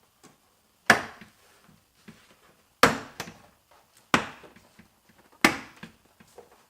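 Plastic door-panel retaining clips snapping loose as a car door trim panel is pried off: four sharp snaps, each a second or more apart.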